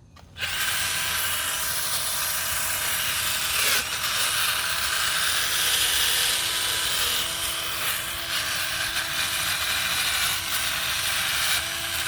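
Power tool sanding an engine block, starting up about half a second in and then running steadily with a hissy, grinding rasp.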